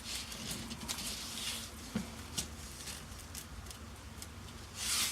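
Quiet handling of Velcro strip while measuring and cutting it: soft rustles with a few light clicks and taps, and a short scraping rustle near the end.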